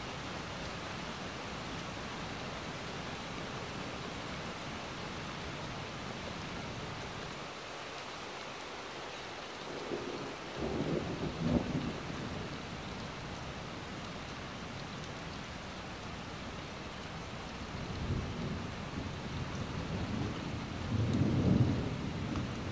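Steady rain falling, with low rolls of thunder about ten seconds in and again from about eighteen seconds on, the second louder and longer.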